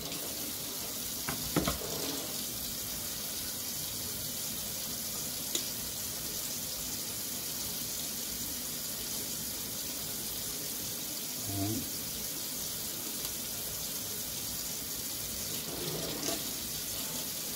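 Kitchen faucet running steadily into a stainless steel sink while a crappie fillet is rinsed under it, with a couple of small clicks.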